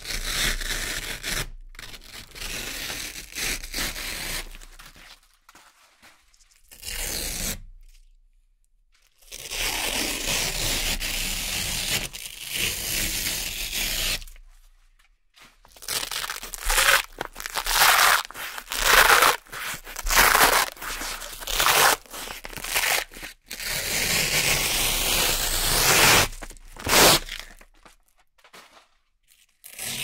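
Velcro strips being peeled off a hook-and-loop board: a series of long, crackly rips, several seconds each, with short pauses between pulls.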